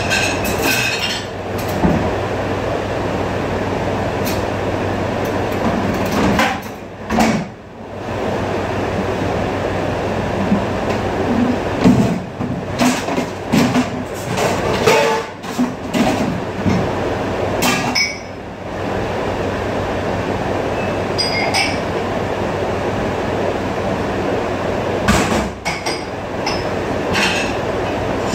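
Commercial dishwasher and dish-pit machinery running with a steady hum and wash noise, with irregular clattering and clinking of dishes and racks. The steady noise drops out briefly twice.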